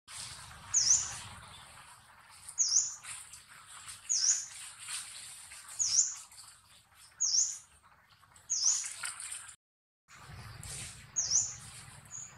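A bird calling a short, sharp chirp over and over, about once every second and a half, over a steady high hiss from the surrounding forest. Near the end the sound briefly drops out to silence.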